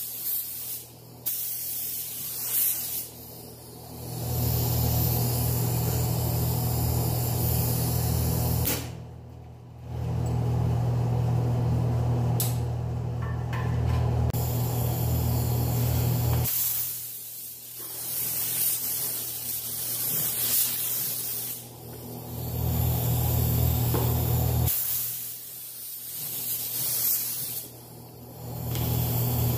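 Air-powered paint spray gun hissing as it sprays candy coat onto a motorcycle fuel tank, in several passes of a few seconds each with short pauses between, a low hum of rushing air under each pass.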